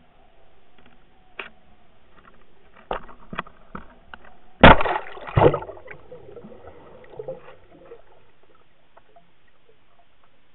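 Camera rig hitting the water about halfway through with a loud splash and a second smaller splash just after, then bubbling and gurgling as it goes under, fading to a dull underwater hush. A few sharp knocks come before the splash.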